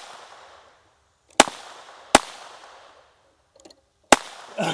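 Tippmann .22 LR Gatling gun firing three single shots, slowly cranked one round at a time. Each is a sharp crack followed by an echo that fades over about a second, the second and third shots spaced further apart as he aims, with a few faint clicks shortly before the last one.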